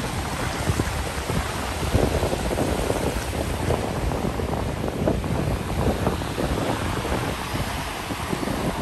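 Small sea waves breaking and washing through the shallows, with wind noise on the microphone.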